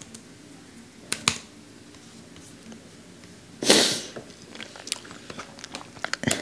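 Scattered clicks of computer keys, a pair about a second in and a quicker run near the end, with a short burst of rustling noise about three and a half seconds in, the loudest sound.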